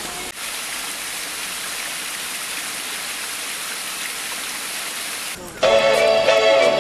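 A steady, even hiss of outdoor background noise, with nothing standing out of it, stops suddenly about five and a half seconds in. Louder background music with guitar starts at that point.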